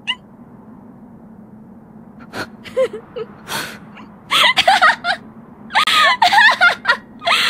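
A young woman's voice breaking into laughter: a few breathy gasps and short giggles, then about four seconds in a run of quick, high-pitched cackling laughs, over a low steady hum.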